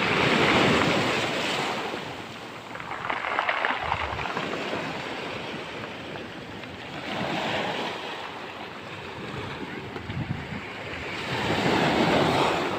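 Storm waves breaking on the shore, the surf surging loudly four times in slow succession.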